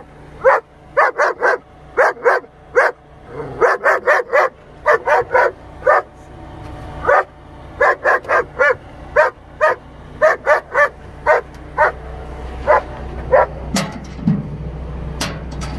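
A female dog shut in an airline travel crate barks over and over in quick runs of sharp barks. She is unhappy after 10 to 12 hours in the crate. A couple of sharp knocks come near the end.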